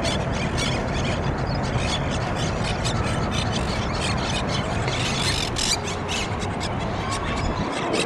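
Monk parakeets calling at their communal stick nest: many short, shrill calls overlapping, several a second, over a steady low rumble.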